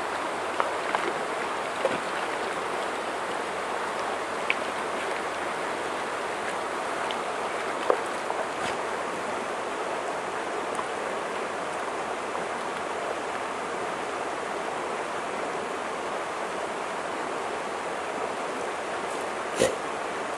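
Shallow mountain creek rushing steadily over rocks, with a few brief faint clicks, one near the end.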